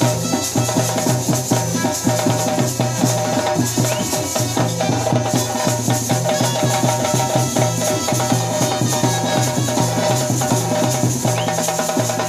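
Yakshagana percussion ensemble in full swing: fast, loud, dense drumming on the chende and maddale with the ring of small hand cymbals, over a steady drone.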